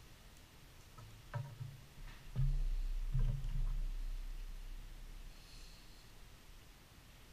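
Handling noise on the camera: a few dull knocks and a low rumble as a hand grips and moves it, with a few light clicks from small items being handled.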